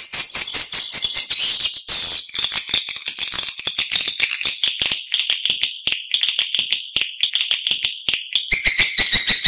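Edible-nest swiftlet lure call: rapid, continuous twittering chirps, many a second, of the kind played from swiftlet houses to draw swiftlets in to roost and nest. About eight and a half seconds in, a second, more tonal chirping layer joins in.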